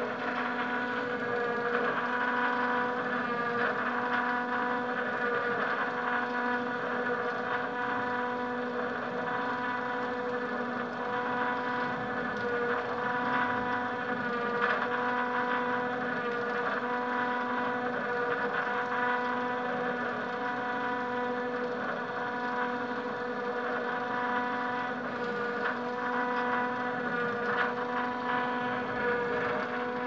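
Small electric gear motor of a homemade sawmill power-feed, running at one steady speed and driving a chain and sprocket. It makes a steady whine with light rattling.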